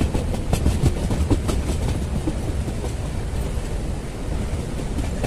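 Wheels of a moving express passenger coach rumbling along the track, with a cluster of sharp clickety-clack strikes in the first two seconds as they run over rail joints.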